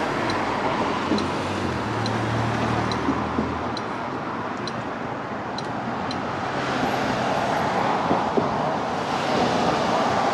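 Steady road traffic noise on a street, with a low engine hum for a few seconds near the start and the sound growing louder toward the end as a car approaches.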